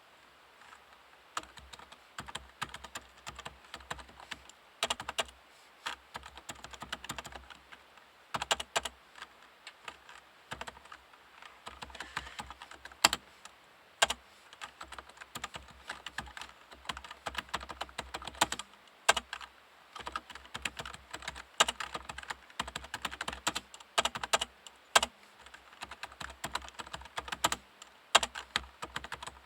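Typing on a Topre REALFORCE 108P-S, a silent-type keyboard with electrostatic capacitive (Topre) switches: rapid keystrokes in bursts with short pauses, and now and then a louder single stroke.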